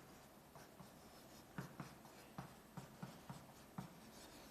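Faint handwriting: about ten short taps and scratches of a writing stroke, mostly in the second half.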